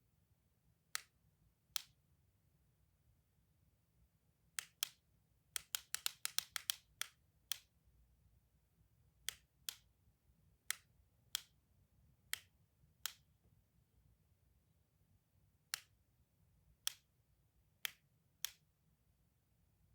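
Sharp clicks from a clicky toy, single and irregularly spaced, with a quick flurry of clicks about six seconds in.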